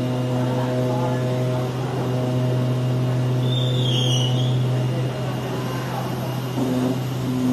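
Paper pattern-cutting machine running with a steady hum, with a brief high squeak about four seconds in.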